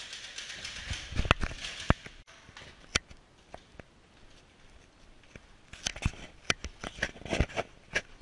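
Rustling, then scattered sharp clicks and knocks, several close together near the end.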